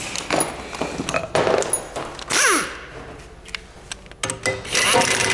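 Metal clicks, knocks and pings of hand tools as the brake disc's small retaining bolt is screwed in and tightened on the rear hub, with a brief whirr that slides in pitch about halfway through.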